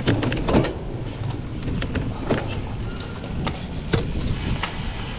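A cyclocross bike being ridden hard over rough ground, with a steady low rumble of wind and terrain noise and scattered sharp clicks and rattles from the bike. The knocks are strongest about half a second in.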